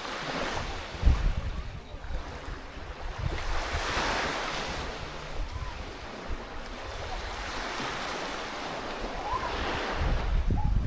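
Sea waves washing on the shore, swelling and easing a few times, with gusts of wind buffeting the microphone.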